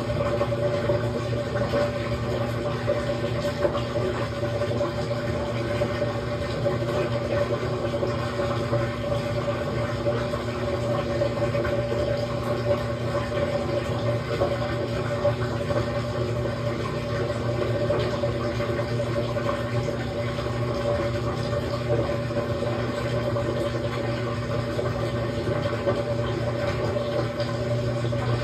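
Samsung top-load washing machine running a quick wash cycle: a steady motor hum with water noise, unchanging throughout.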